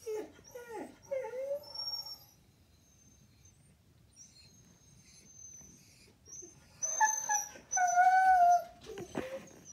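Siberian husky whining and yowling: short sliding cries at first, a quieter stretch with faint high whines, then two louder drawn-out cries near the end, an excited reaction to a coyote on the television.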